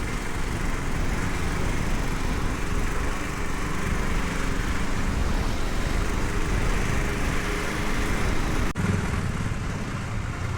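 Hero XPulse 210's single-cylinder engine running steadily while the motorcycle is ridden, with wind and road noise. The sound briefly drops out about nine seconds in.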